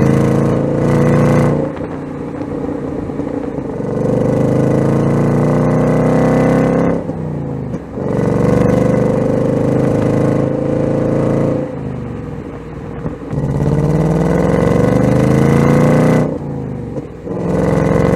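Ford Mustang Dark Horse's 5.0-litre Coyote V8 under hard acceleration, its note rising in pitch through a pull, then dropping and climbing again, about four times over.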